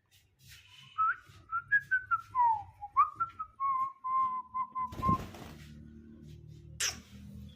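Grey francolin calling: a run of clear whistled notes that rise and fall, then settle into a string of short, even notes on one pitch. A low steady hum runs underneath, with a sharp click about five seconds in and another near the end.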